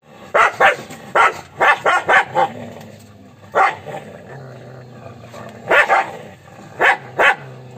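Dogs barking aggressively: about a dozen sharp barks, singly and in quick pairs, with a low steady growl between the barks.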